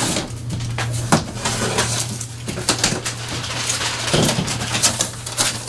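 Cardboard shipping box being opened by hand: scratches, scrapes and rustles of tape and flaps, with a louder scrape about four seconds in, over a steady low hum.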